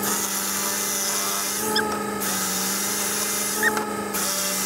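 Handheld electric power cutter cutting a sheet of Lexan polycarbonate: a steady motor whine with a hiss from the cut, shifting briefly twice as the tool works through the corners.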